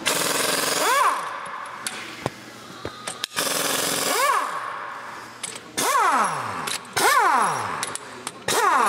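Impact wrench loosening cylinder head bolts in about five short hammering bursts, its motor whining down in pitch after each trigger release.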